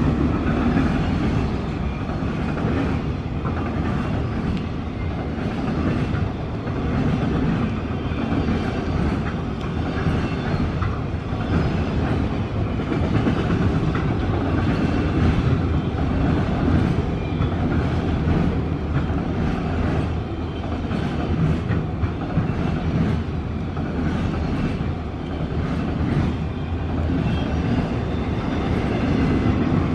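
A long string of autorack freight cars rolling past close by: a steady rumble of wheels on rail with a running clickety-clack of wheel clicks.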